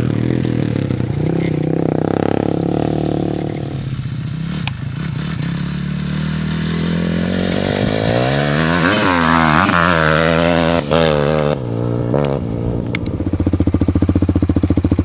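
ATV engines revving up and down as the four-wheelers ride the track, the pitch climbing and dropping several times. About two-thirds of the way through it settles into a steady, evenly pulsing low engine note.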